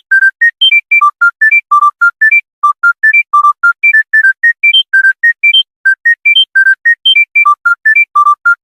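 Mobile phone ringtone: a fast synthesized melody of short, clean beeping notes, about four to five a second, climbing in repeated runs of three or four notes.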